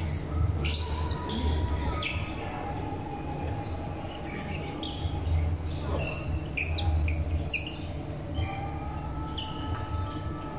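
Badminton hall sounds: many short, high squeaks of shoes on the court floor and occasional sharp racket strikes on shuttlecocks, over a steady low hum and faint voices echoing in the large hall.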